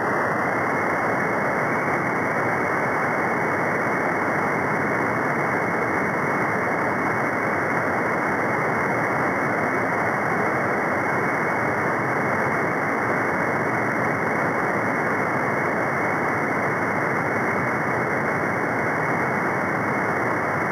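Steady hiss of band noise from a radio receiver tuned to the CB freeband with no station transmitting, its top cut off sharply by the receiver's narrow sideband filter.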